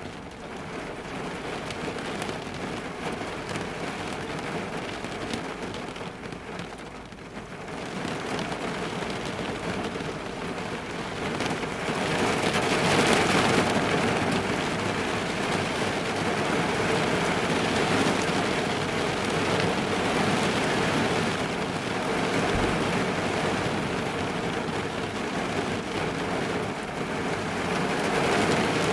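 Heavy rain falling on a car's roof and windows, heard from inside the car: a dense, steady patter that gets louder about twelve seconds in.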